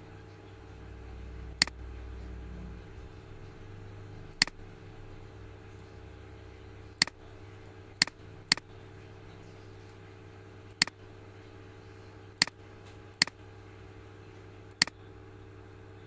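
Computer mouse clicking nine times at irregular intervals over a steady low electrical hum.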